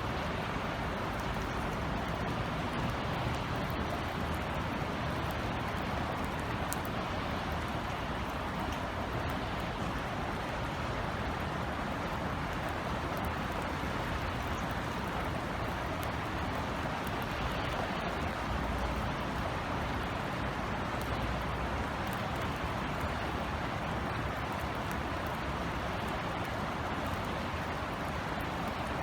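Steady drizzle falling on outdoor surfaces, an even hiss with scattered faint drop ticks and a low rumble underneath.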